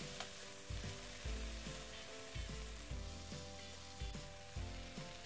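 Marinated shrimp sizzling in hot oil in a non-stick pan as they are laid in to grill, with soft background music underneath.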